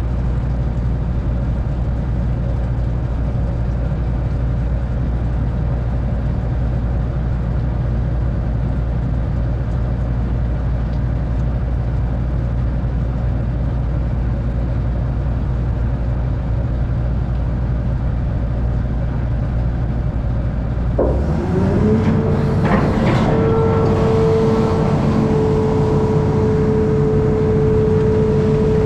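Amphibious excavator's diesel engine running steadily at a low, even hum. About two-thirds of the way through it rises in pitch and holds at higher revs, with a steady whine over the engine note.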